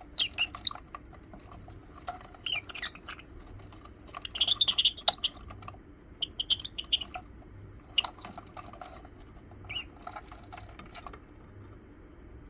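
Lovebirds chirping and squeaking in about seven short, high bursts, loudest a third of the way through, with light clicks in between.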